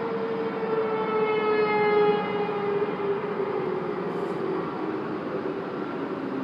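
Outdoor warning siren wailing across the city, swelling loudest about two seconds in and then slowly falling in pitch as it winds down, over a steady background of city traffic noise.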